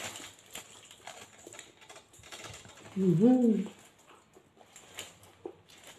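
Close-up eating sounds: small wet clicks of chewing and light crinkling of the shawarma's paper wrapper. A short hummed voice sound, rising then falling, comes about three seconds in.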